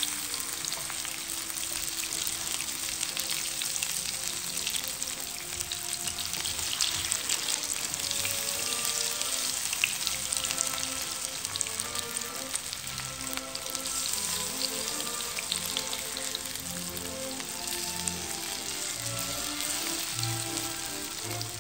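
Food frying in hot oil in a pan, a steady sizzle with fine crackles and pops. Background music plays underneath and becomes more prominent near the end.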